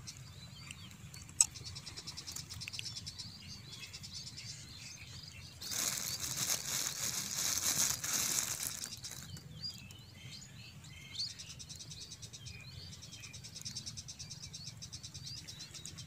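Thin plastic bag crinkling for about three seconds near the middle as a mango slice is dipped into it, over a steady background of small birds chirping and insects trilling. A single sharp click comes about a second and a half in.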